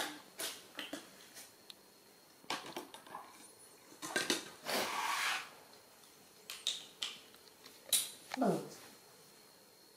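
Scattered light knocks, clatters and scuffs as baby macaques move about on a tiled floor, one handling a plastic milk bottle. Near the end, a short sound slides quickly down in pitch.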